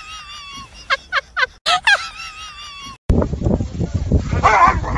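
Clusters of short, high clucking calls like a hen's, each with a quick bend in pitch. About three seconds in they cut off abruptly, and rustling and voices take over.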